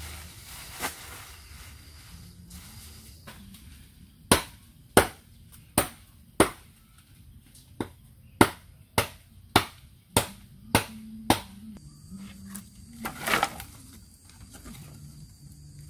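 A machete chopping into a branch: about eleven sharp strokes at a steady pace of nearly two a second, after some leaf rustling. A brief rustling clatter follows near the end.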